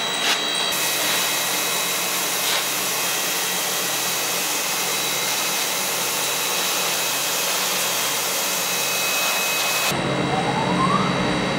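Steady, loud rushing hiss of factory machinery with a few faint steady whines in it. About ten seconds in it changes to a lower machine hum, with a short rising whine.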